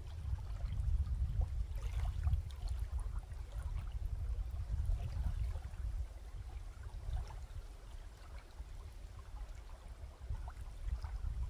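Small waves lapping and trickling at a sandy lakeshore under a low, fluctuating rumble of wind on the microphone.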